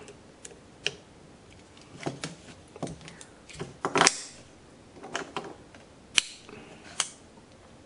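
Scattered small clicks and taps of a precision screwdriver and a Boker SD3 folding knife being handled. The sharpest click comes about four seconds in, and two more sharp clicks near the end come as the knife's blade is opened and worked.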